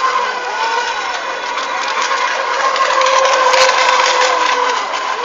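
Electric motors of several FSR-E radio-controlled racing boats whining together, a steady whine with other pitches sliding up and down through it as the boats run.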